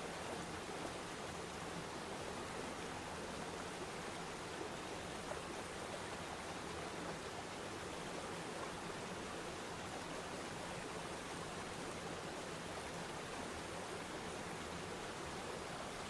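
Waterfall and shallow river rapids rushing steadily: a continuous, even wash of falling and flowing water with no breaks.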